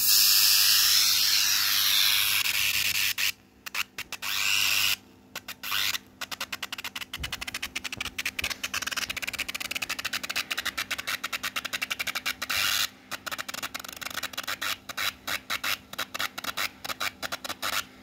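Electric arc between carbon rods fed by a small switch-mode welder. It strikes suddenly with a loud steady hiss and cuts out briefly a couple of times a few seconds in. From about six seconds it burns on as a rapid sputtering crackle, many pops a second, with short dropouts.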